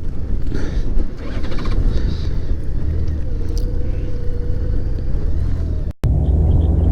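Honda Gold Wing GL1800 trike's flat-six engine running with a low rumble, mixed with gusty wind noise on the microphone. A brief dropout near the end, then a steadier, slightly louder engine drone.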